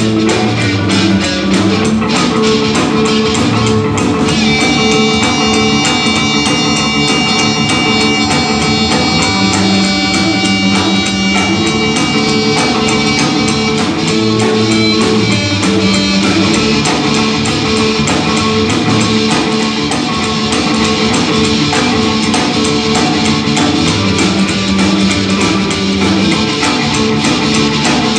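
Live blues band playing an up-tempo number: amplified harmonica over upright double bass, hollow-body electric guitar and drum kit, with long held high notes from about four seconds in to about fourteen seconds in.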